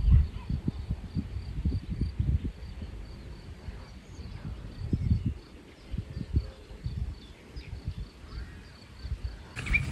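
Wind buffeting the microphone in irregular low gusts on an open riverbank, with a faint, high insect chirp repeating at an even pace behind it.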